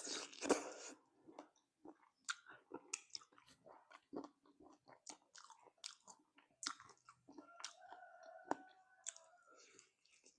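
Close-up chewing of spicy chicken feet: wet smacking, sucking and small crunches as the skin and cartilage are bitten off the bones, with a louder bite in the first second.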